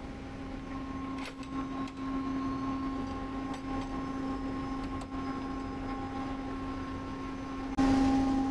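Steady low machinery hum, with a few sharp metal clicks and knocks as a zinc anode rod is clamped in a bench vise. Near the end the hum abruptly gets louder.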